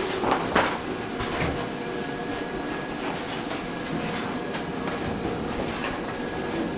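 Large-format vinyl cutter cutting a self-adhesive vinyl print: a steady mechanical run with scattered light clicks and a faint steady hum.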